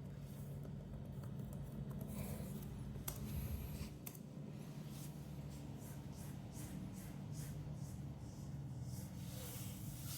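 Light scratching and rubbing with scattered small clicks, over a steady low hum.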